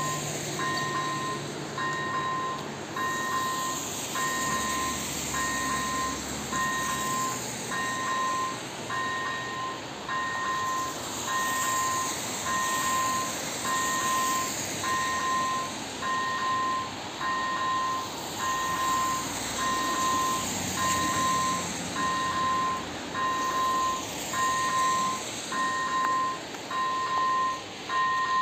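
Level-crossing electronic warning bell on the flashing-light signal, sounding a two-note ding about once a second, with an even beat: the crossing is activated for an approaching train.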